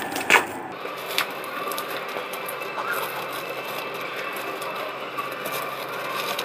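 Packaging of a microphone being handled and opened by hand: rustling and crackling of plastic and cardboard, with a sharp click shortly after the start and another about a second in.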